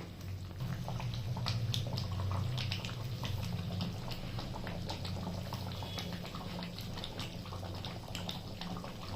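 Chicken curry bubbling and popping as it simmers in a pot: many small irregular pops over a steady low hum.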